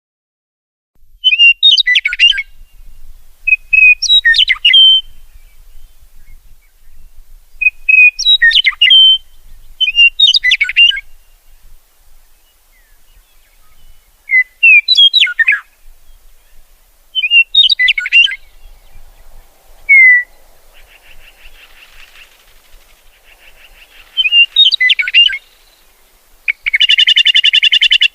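A songbird singing short, intricate whistled phrases, starting about a second in and repeating every two to three seconds. A buzzy trill comes in the second half, and a loud, harsh buzzy call comes near the end.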